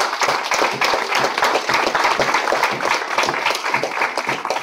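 Applause from a small group of people: a dense, steady run of hand claps.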